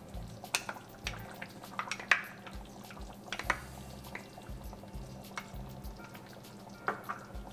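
Cream pouring from a small bowl into simmering curry sauce while a wooden spoon stirs it through the pan, with scattered clicks, taps and wet splats; faint background music underneath.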